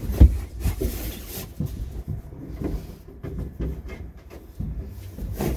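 Hands rummaging up inside a school bus's ceiling panel for a cable, making irregular knocks, bumps and rustles, with a sharp thump about a fifth of a second in.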